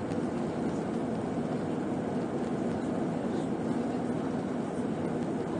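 Steady cabin noise of an Airbus A319 in its climb after takeoff: a low, even rush of jet engines and airflow, heard inside the passenger cabin.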